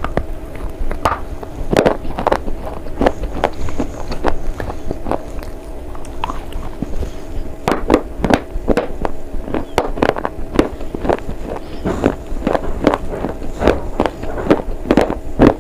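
Crunchy chewing of edible slate bar: a quick run of sharp, irregular crunches, a few each second, coming thicker and louder in the second half.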